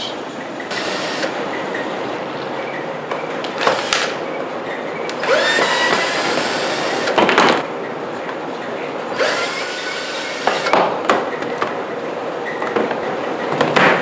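Cordless drill/driver run in four short bursts against the old birdhouse frame, the longest about two seconds, backing out the drywall screws it was built with.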